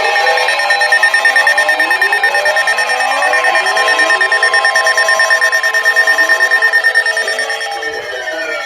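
Warning sirens wailing, several at once, their pitches rising and falling and overlapping, over a steady pulsing electronic alarm tone. The pulsing eases about seven seconds in.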